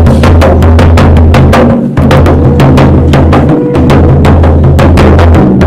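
Dhol, the two-headed folk drum of Uttarakhand, beaten close up with a curved wooden stick on one head and the bare hand on the other: a fast, even beat of loud strokes over a booming low resonance.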